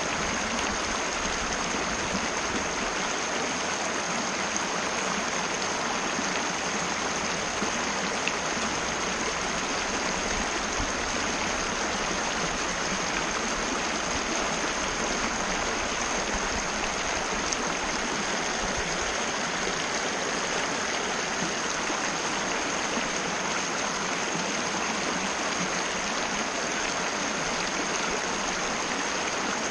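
Mountain river flowing over rocks: a steady, unbroken rush of running water, with a thin steady high tone above it.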